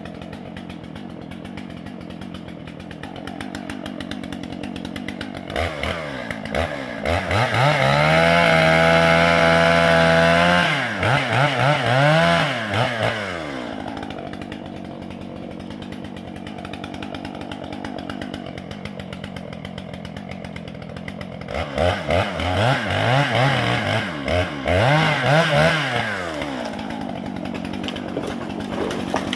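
Gas two-stroke chainsaw idling, then revving up to full throttle about six seconds in and holding there for several seconds before dropping back. It blips the throttle a few times, idles again, and near the end gives a burst of quick revs before returning to idle.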